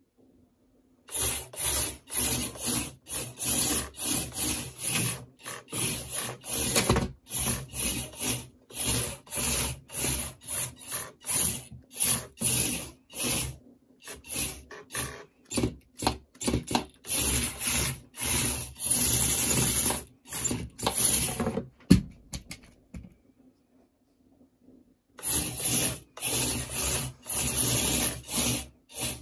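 Antweight combat robot's small electric drive motors whirring in rapid short bursts as it darts and spins on a wooden tabletop, its wheels rubbing on the wood. There is a sharp knock near the end of the run, then a pause of about two seconds before the bursts start again.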